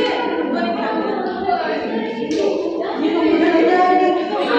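Women's voices singing a garba song, with no instrument standing out, as a dance practice goes on.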